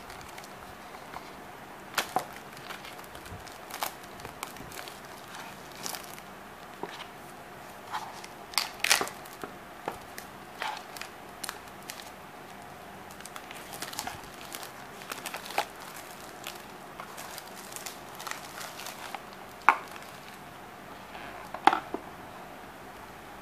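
Clear plastic protective film crinkling and crackling in irregular snaps as it is peeled and pulled off a plastic lamp shade and base.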